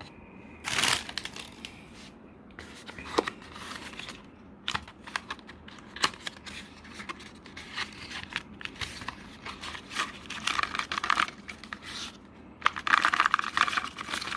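Cardboard box and paper packaging being handled: rustling, scraping and light taps as the contents are lifted out, with a louder stretch of rustling near the end.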